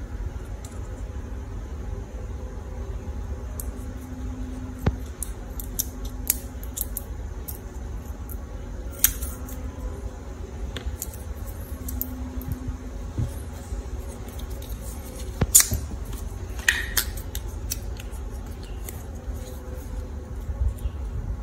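Small scissors snipping plastic drinking straws: scattered, irregular sharp snips and clicks, the loudest a little past halfway.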